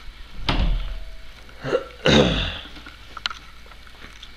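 Short non-word sounds from a person's voice: one about half a second in and a falling one about two seconds in, followed by a few faint clicks.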